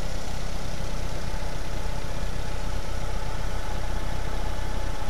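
Nissan Sentra's four-cylinder engine idling steadily, heard close up with the hood open, with a faint steady whine over the low engine note.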